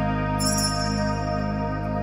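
Soft, soothing instrumental background music of sustained chords, with a bright high shimmer coming in about half a second in.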